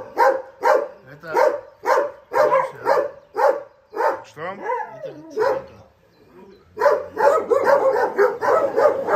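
Shelter dogs barking repeatedly, about two to three barks a second. The barking eases off briefly around the middle, then resumes thicker, with several dogs barking over one another.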